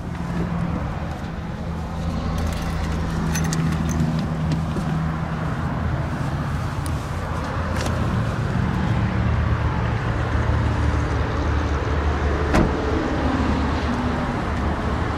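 A car's rear passenger door is opened and someone climbs out. The door shuts with a single sharp knock about twelve and a half seconds in, over a steady low hum.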